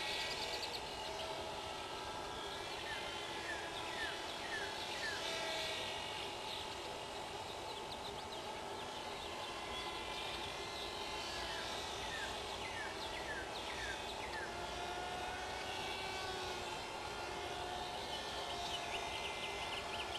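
Micro RC plane's brushless electric motor whining in flight, its pitch stepping up and down as the throttle changes.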